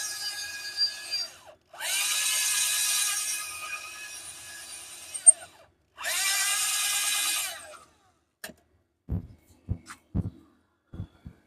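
Electric drill boring holes in a metal base, run in three bursts that each spin up to speed, followed by a few scattered knocks and clicks.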